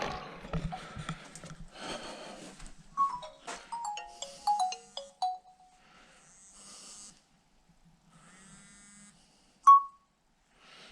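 Mobile phone going off: a falling run of short electronic ringtone notes, a buzzy tone, then a single sharp ping near the end, which is the loudest sound. Scuffing noise at the start.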